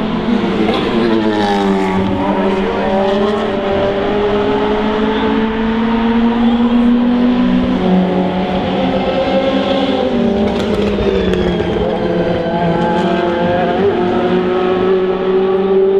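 4.0-litre V8 engines of DTM race cars running. Their pitch dips about a second in and then holds fairly steady, with a few sharp exhaust pops.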